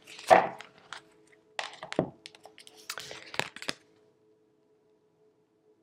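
Tarot cards being handled against a deck and the table: a string of short sharp taps and snaps, stopping about four seconds in.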